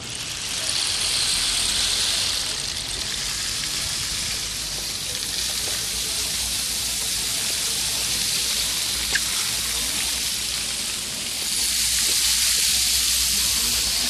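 A few dozen homemade rain sticks tilted together, their filling trickling down inside the tubes as one steady rushing hiss like heavy rain, swelling a little about two thirds of the way through.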